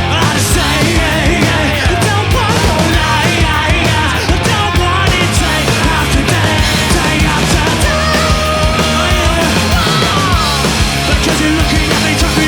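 Loud rock music from a full band, with a driving drum beat that keeps going steadily.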